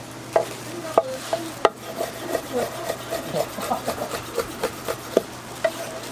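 Cooking utensils scraping and knocking against cookware in quick, uneven strokes, with several sharp knocks among them, over a low steady hum.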